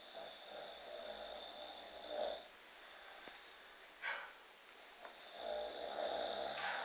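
A man snoring: two long snores about three seconds apart, with a brief sharp sound between them.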